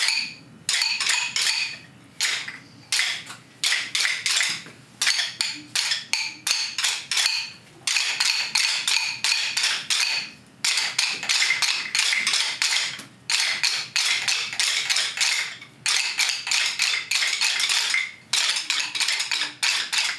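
A class of children tapping rhythm sticks in repeated rhythm patterns: many quick, sharp clicks in bursts of a second or two, with short breaks between.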